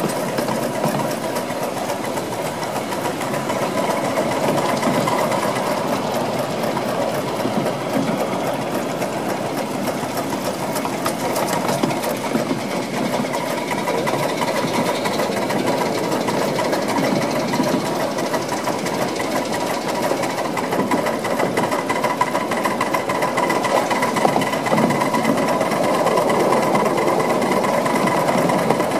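Krauss 5-inch gauge miniature locomotive running along the track, with a fast, even mechanical beat and its wheels rolling on the rails.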